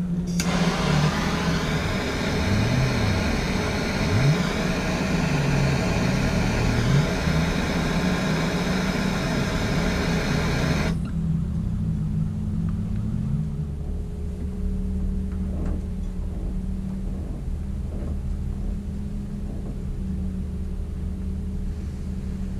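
Hand-held butane blowtorch burning with a steady hiss for about ten seconds as it melts and seals the cut ends of a synthetic rope bridle, then cut off suddenly. A low mechanical hum runs underneath throughout.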